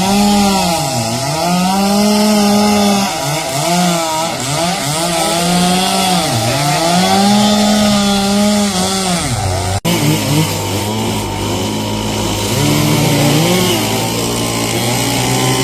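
Chainsaw running and cutting, its engine note repeatedly rising to full speed and sagging under load. About ten seconds in, it breaks off abruptly and a chainsaw runs at a lower, steadier speed with one brief rev.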